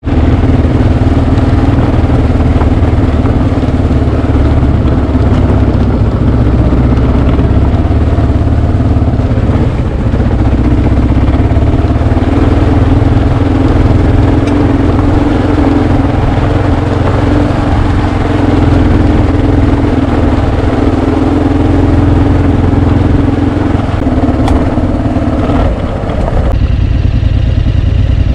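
Adventure motorcycle running under way, with a steady engine note over heavy low rumble. Near the end the engine note stops and the sound thins out.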